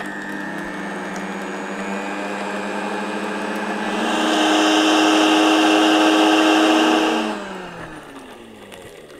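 Moulinex high-speed blender motor running while it grinds toasted bread into breadcrumbs. About four seconds in it is turned up to a higher speed and gets louder and higher-pitched. Near the end it is switched off, and the whine falls in pitch as the blade spins down.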